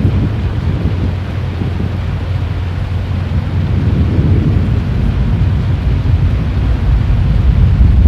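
Low rolling rumble of thunder, steady and deep, swelling louder near the end.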